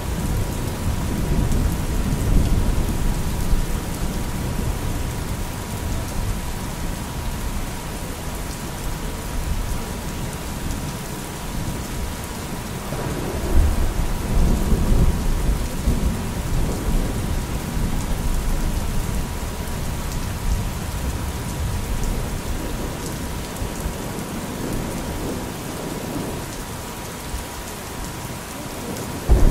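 Rain falling with rolling thunder, the rumble swelling about thirteen seconds in, and a faint steady 963 Hz tone held throughout.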